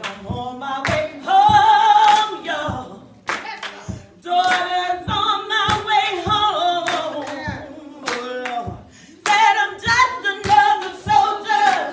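Song with sung vocal phrases and sharp hand claps keeping the beat.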